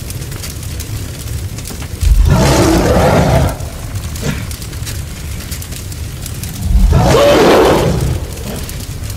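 Two loud roars of about a second and a half each, the first about two seconds in and the second near seven seconds, over a steady low rumble.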